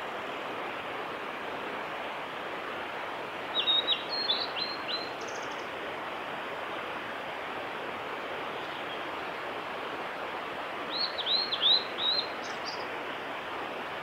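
Male blue-and-white flycatcher singing twice, each phrase a quick run of clear whistled notes that drop sharply in pitch, ending in a short buzzy note. A steady rushing noise runs underneath.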